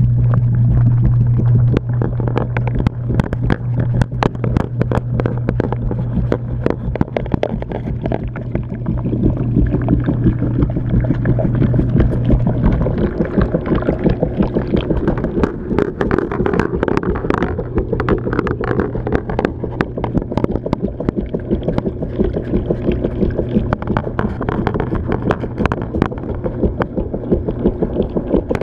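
Washing machine wash cycle heard from inside the drum through a GoPro's waterproof dive housing: muffled water sloshing, with rapid knocks and clatters as the housing tumbles against the drum and clothes. A steady low hum runs underneath and drops in level about 13 seconds in.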